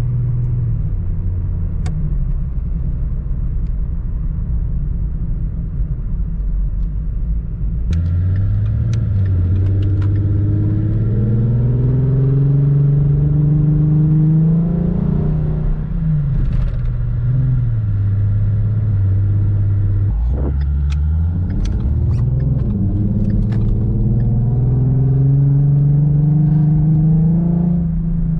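2015 Mustang's 3.7-litre V6, fitted with long-tube headers, an H-pipe into an X-pipe and Magnaflow mufflers, running under way. Its pitch holds fairly level at first, then rises steadily under acceleration, falls back, holds, and climbs again near the end.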